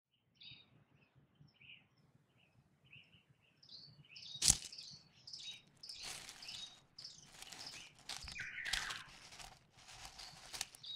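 Small birds chirping faintly, then dry leaves rustling in irregular bursts from about four seconds in as a hand pushes through a pile of them, with one sharper crackle at the start of the rustling.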